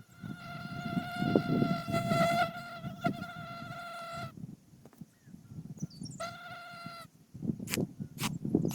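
Cordless drill motor whining steadily at one pitch while driving screws in: one run of about four seconds, then a short run of about a second, followed by a few sharp clicks near the end.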